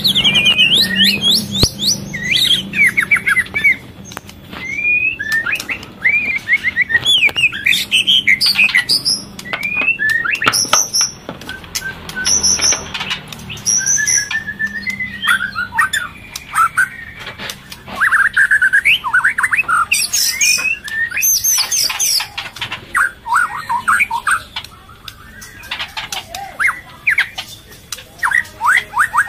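Murai (white-rumped shama) singing: long, varied phrases of rapid sweeping whistles and chattering notes, dotted with sharp clicks, as used for a lure call of a murai in breeding condition.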